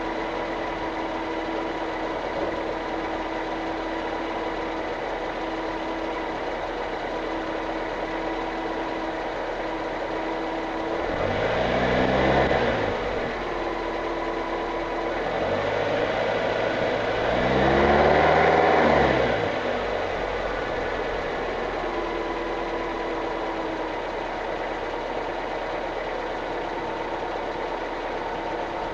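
Nissan KA24E 2.4-litre four-cylinder engine idling steadily, revved up and let fall back twice, the second time higher and longer. It has a new adjustable timing chain tensioner and chain guide fitted, and the owner judges that it sounds healthy.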